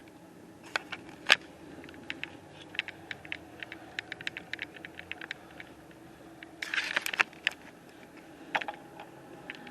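A run of irregular sharp clicks and light clinks, densest in the middle and with a louder cluster near the end, over a faint steady background.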